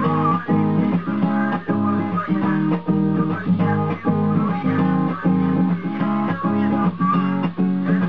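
Acoustic guitar playing chords in a steady, even rhythm, about three or four strikes a second.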